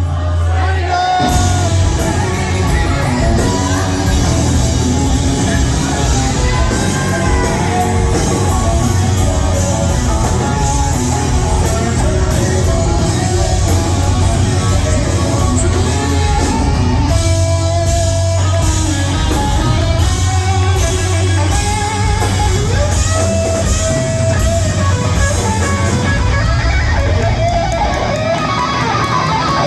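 Live rock band playing loudly, with electric guitar over steady drum hits and a heavy bass line.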